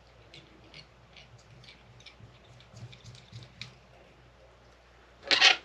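Small, light clicks and ticks of hand-tying a crappie jig at the vise, tools and materials being handled, then a short loud burst of noise a little over five seconds in.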